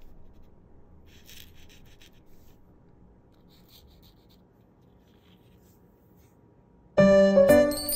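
A felt-tip marker scratches faintly on folded paper in short strokes, about a second in and again around three and a half seconds in. Loud music with jingling chimes starts suddenly near the end.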